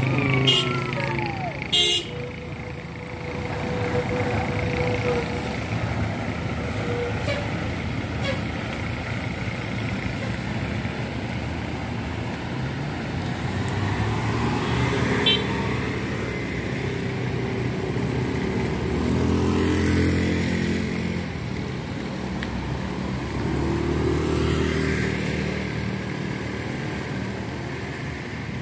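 Large buses driving past, their diesel engines running and swelling louder twice in the second half, with bus horns sounding. Two sharp clicks in the first two seconds.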